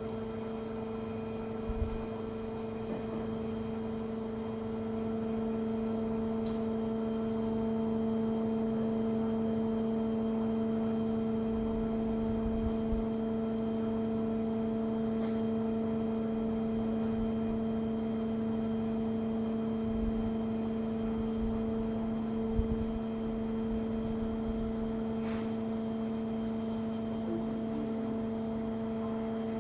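Tilt table's drive running with a steady hum while it slowly raises the table, with a few faint knocks along the way.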